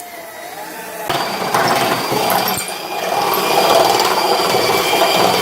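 Power drill boring a hole through a car's hood: the motor spins with a wavering whine, then about a second in the bit bites into the metal and it turns into a loud, steady grinding with a high whine.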